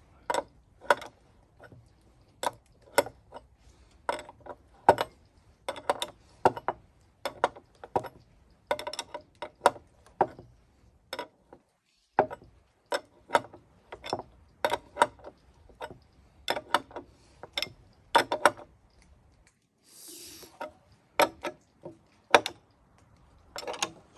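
Sharp clicks and clanks of hardware and parts being handled and fitted together, coming singly or in small clusters every half second or so. A short hiss breaks in about twenty seconds in.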